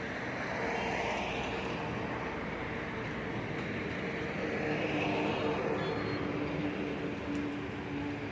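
Backhoe loader's diesel engine running under load, with a steady drone and faint whining tones; the engine note swells twice, about a second in and again around the middle.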